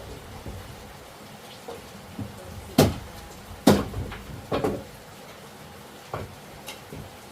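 Several sharp knocks, irregularly spaced, the two loudest close together near the middle, with a few lighter ones after.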